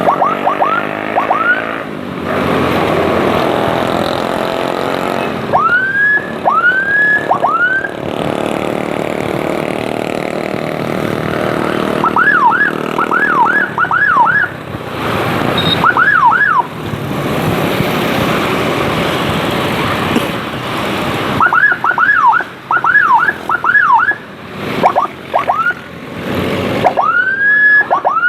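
Newly fitted electronic siren on an ambulance-escort motorcycle, sounded in short bursts: rising whoops and quick up-and-down yelps, in groups of a few at a time, over steady riding noise.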